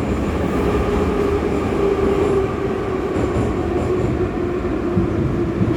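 New York City subway train running: a steady loud rumble with a motor whine that slowly falls in pitch.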